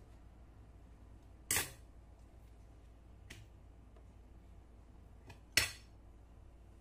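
Two short, sharp clacks of hard kitchenware knocking, about four seconds apart, with a faint tick between them, over a quiet room.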